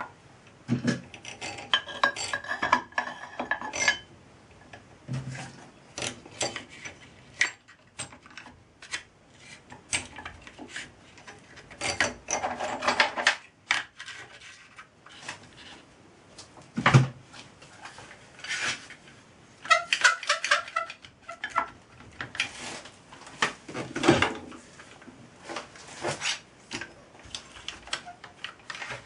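Metal workpieces and fittings being handled and set against a steel angle plate on a lathe cross-slide: scattered clinks, taps and knocks, some with a brief metallic ring.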